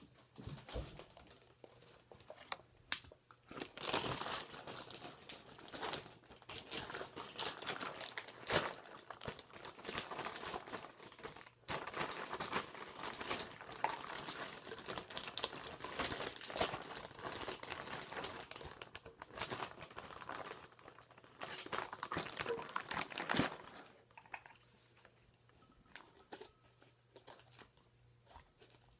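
Butter slime and its packaging being handled as the slime is portioned into small 2-ounce containers: continuous irregular crinkling and crackling, dying away about 24 seconds in.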